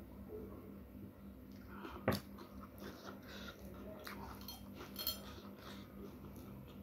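A drinking glass set down with a sharp knock about two seconds in. Then faint squishing and ticking of fingers mixing rice on a stainless steel plate, with a smaller clink near five seconds.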